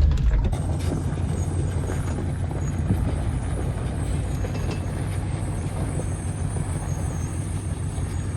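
4x4 tow truck's engine running steadily under load as it pulls a hooked-up vehicle, a low drone that eases off about half a second in and then holds even.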